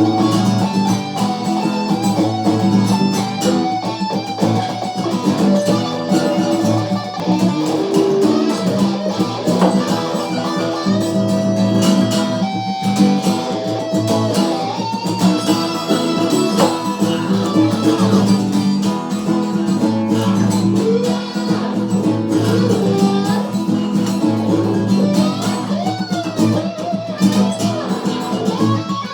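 Guitar jam: instrumental guitar music played continuously, with sustained chords and notes.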